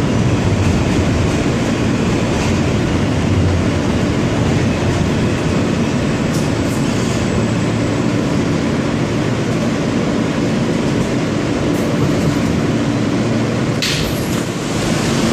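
R160 New York subway car running at speed, heard from inside the car: a steady, loud rumble of wheels on rail with a low steady hum, and one sharp clack near the end.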